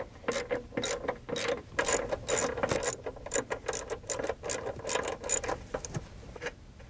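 Socket ratchet clicking in quick, uneven runs as it loosens the 10 mm nuts holding the ABS vacuum pump, stopping shortly before the end.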